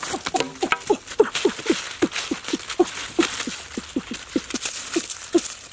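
Dry leaf litter rustling and crackling as hands scrabble through it to grab an eel. Under it runs a steady series of short, falling animal calls, about two to three a second.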